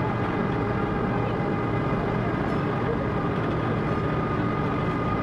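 Passenger ferry's engine running steadily: an even, dense drone with a few faint steady tones above it.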